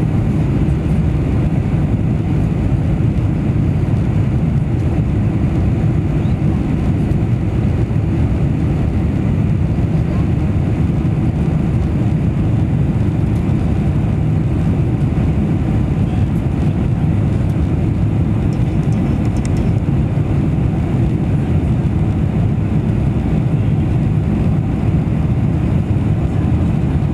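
Steady low rumble of a Boeing 747-400's engines and rushing airflow, heard inside the cabin during the climb after takeoff.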